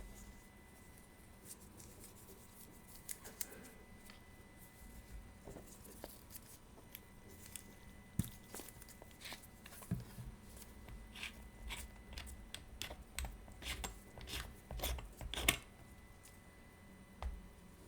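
Irregular small clicks and light scrapes of hand tools working on a wristwatch, with the clicks coming thicker and louder in the second half.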